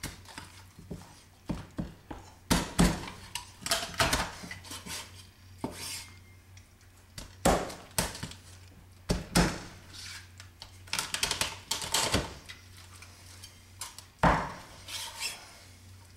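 Meat cleaver chopping through a raw whole chicken's breastbone and backbone on a wooden cutting board: irregular sharp chops and knocks, with a quick run of strokes about two-thirds of the way through.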